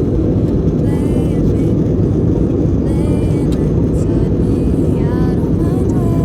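Background pop music over a steady, loud low rumble.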